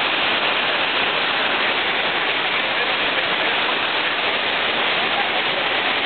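Loud, steady rush of water from a waterfall and the rapids of its rocky river.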